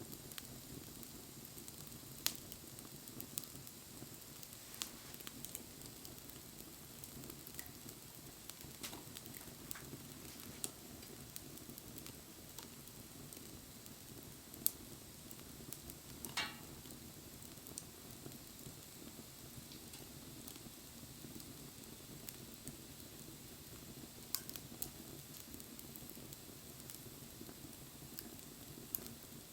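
Campfire burning: a steady low hiss with scattered sharp crackles and pops, and one brief sputter a little past halfway.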